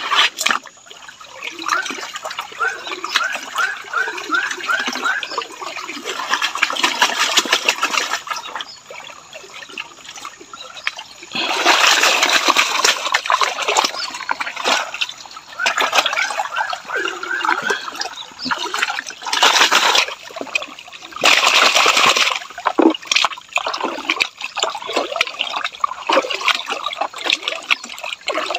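Water sloshing and splashing in a plastic gold pan as it is swirled and dipped in a shallow stream to wash away sediment during gold panning. There are several louder rushes of water along the way.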